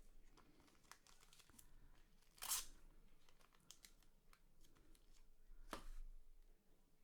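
Faint handling of trading cards and their packaging: light rustles and clicks, with two short louder tearing swishes about two and a half and six seconds in.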